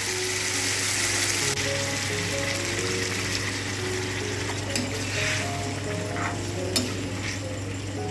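Hot sauce sizzling in a steel kadai as water is poured in for a gravy, the hiss strongest for about the first second and a half, then settling into a steady simmering sizzle. A spatula stirs, with a few sharp clicks against the pan about five and seven seconds in.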